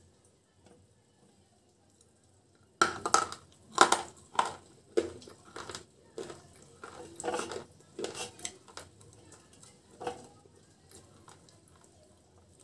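Crunching bites and chewing on a hard white chip coated in black paste, close on a lapel microphone: a sudden run of sharp crunches about three seconds in, loudest over the next two seconds, then thinning to scattered crunches until a few seconds before the end.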